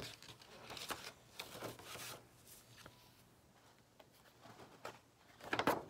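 Paper rustling as a folded letter and brochure cards are unfolded and handled, in scattered short strokes with a louder rustle near the end.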